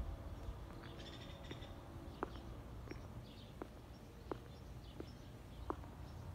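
Footsteps on a concrete walkway at an even walking pace, about one and a half steps a second, starting about two seconds in. Faint bird chirps and a low steady rumble lie under them.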